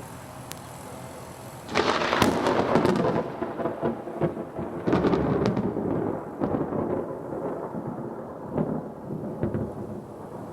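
Thunder: a sudden sharp crack about two seconds in, breaking into a crackling, rolling rumble that swells again midway and slowly dies away.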